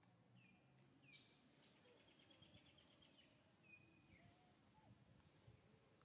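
Near silence: faint outdoor ambience with a steady high whine, and a few faint, short chirps that fall in pitch in the first four seconds.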